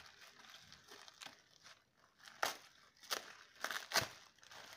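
Plastic bubble wrap crinkling quietly as hands unwrap it, with about four sharper crackles in the second half.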